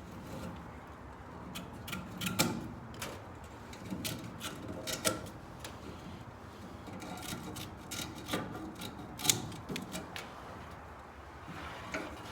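Scattered light clicks and knocks with rustling, the sound of hands working at the old webbing straps on an aluminum canoe seat.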